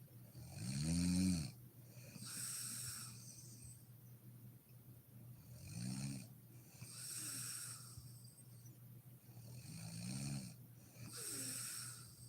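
A sleeping woman snoring in slow rhythm: three snores about four to five seconds apart. Each snore is a short rumble that rises and falls in pitch, followed by a breathy rush of air.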